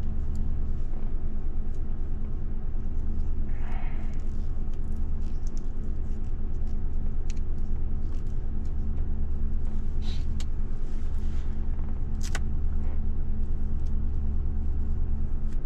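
Ford Crown Victoria Police Interceptor's 4.6-litre V8 idling, a steady low rumble heard inside the cabin. A few light clicks sound as wires and connectors are handled by the seat.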